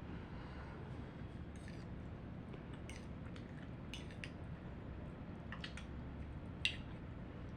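Eating utensil clinking and scraping against a cooking pot while food is scooped out, a handful of light taps with the sharpest near the end.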